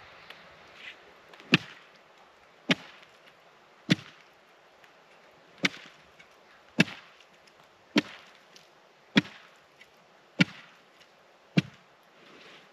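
A hand tool chopping into pond ice to cut a fishing hole: nine sharp blows, evenly spaced a little over a second apart.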